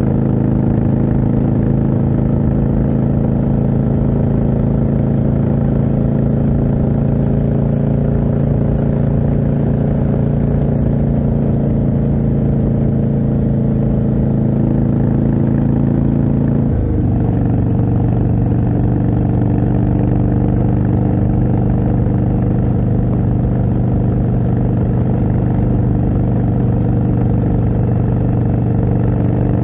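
Indian Chieftain's 1811 cc V-twin running steadily under way through a Jekill & Hyde aftermarket exhaust. About two-thirds of the way through, the engine note drops sharply in pitch and settles at a lower steady note.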